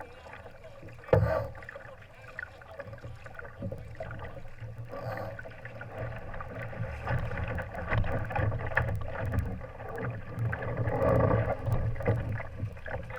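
Water sloshing and splashing along the hull of a Laser sailing dinghy, over a low steady rumble. There is one sharp knock about a second in, and scattered clicks and knocks in the second half.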